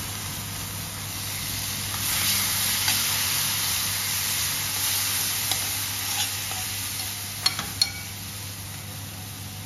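A wet ground paste of garlic, ginger, green chilli and coriander stems sizzling in hot oil in a stainless steel pan while a metal spatula stirs and scrapes it. The sizzle grows louder about two seconds in, and two sharp clicks come close together near the end.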